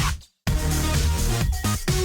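Electronic dance music with a steady beat. It cuts out to silence for a moment just after the start, then comes straight back in.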